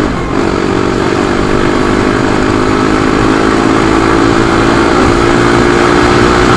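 Crossfire 250 dirt bike engine running under way, dipping briefly in pitch just after the start, then holding a steady note that creeps slightly higher. Wind buffets the microphone.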